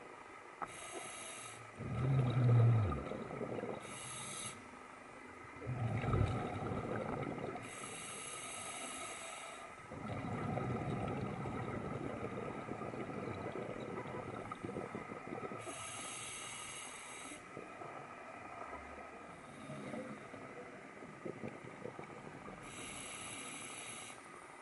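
Scuba diver breathing through a regulator underwater: a short hiss of air on each inhale, then a longer bubbling rush as the exhaled breath leaves the regulator. The cycle repeats about five times.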